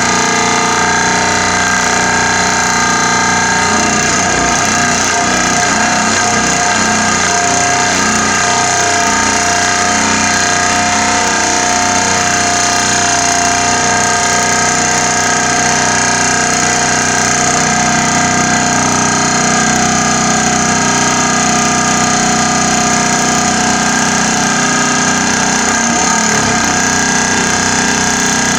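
Pile-driving rig sinking a rolled steel profile pile into the ground: a loud, steady mechanical drone with several sustained tones.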